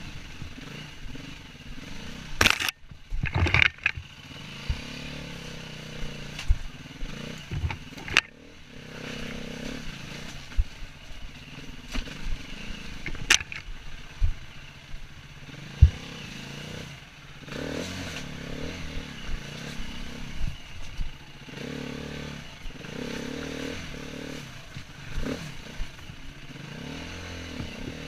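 Enduro dirt bike engine running with revs rising and falling as it picks its way up a rocky trail. Sharp knocks and clatter from the bike striking rocks break in now and then, with a loud cluster of them a few seconds in.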